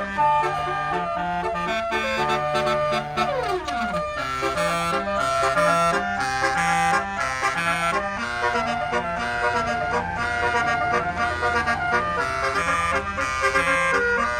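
Tour bus telolet horn of the Basuri type playing a tune of held notes that change in steps, with one steep downward slide in pitch at about four seconds in.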